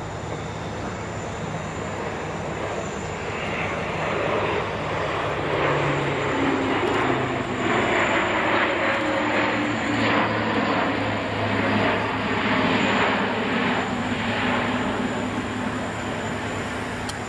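Aircraft engine roar of a plane flying past, building over several seconds, loudest in the middle, with a low hum that shifts in pitch, then easing off.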